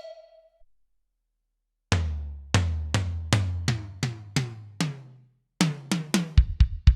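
Kurzweil K2vx synthesizer playing a drum-kit preset: after a short silence, about nine evenly spaced drum hits with a low tone held under them, then a quicker run of hits with kick drums.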